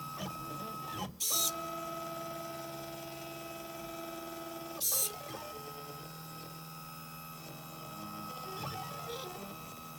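Stepper motors of a GRBL-driven polar CNC drawbot whining as they move, in steady tones that change pitch from one move to the next. Two short, loud hissing bursts cut in, about a second in and again about five seconds in.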